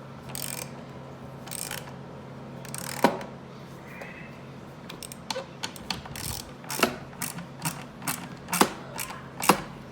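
3/8-inch drive Pittsburgh hand ratchet clicking as it is swung back and forth to tighten chair bolts. A few scattered clicks at first, then a quicker run of about two or three clicks a second in the second half, over a steady low hum.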